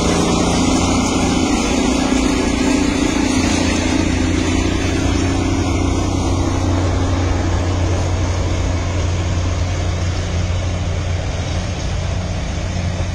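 A vehicle engine running steadily under a loud hiss of motion noise, with a low hum that eases slightly in the second half.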